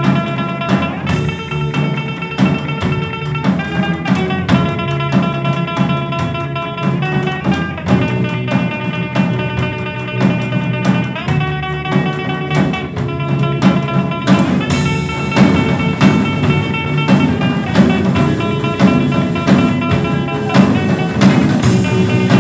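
Instrumental rock passage: guitar notes held over a steady drum kit, with a cymbal crash near the start, another past the middle and one near the end.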